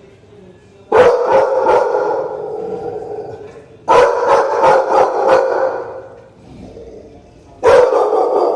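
Pit bulls barking in three loud volleys of quick, deep barks: about a second in, about four seconds in, and near the end, with quieter pauses between.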